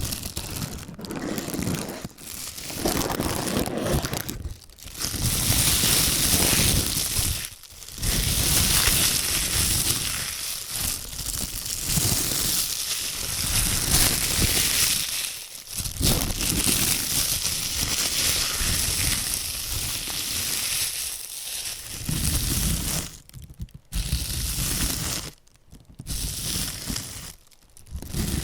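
Disposable plastic gloves crinkled and rubbed together close to the microphone, a dense crackling in long runs broken by several brief pauses.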